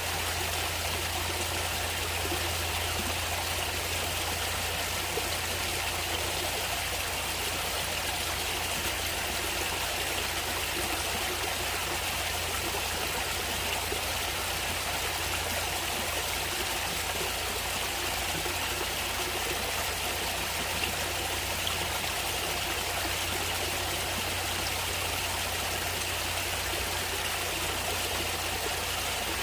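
Natural stream water flowing steadily: an even, unbroken rush with a steady low rumble underneath.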